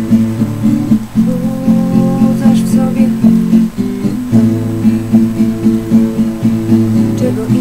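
Acoustic guitar strummed in a steady rhythm, chords ringing with several chord changes and no voice.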